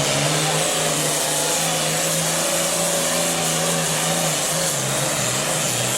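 Super farm class pulling tractor's diesel engine running at steady high revs, its pitch dipping briefly twice in the last couple of seconds.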